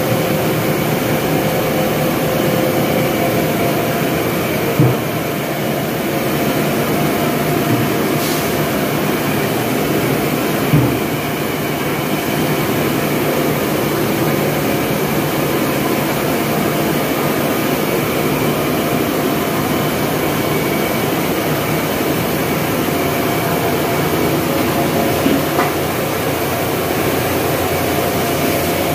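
Corn mill running: a loud, steady mechanical drone from the milling and sifting machinery as ground corn grits pour down its chutes, with brief knocks about five and eleven seconds in and again near the end.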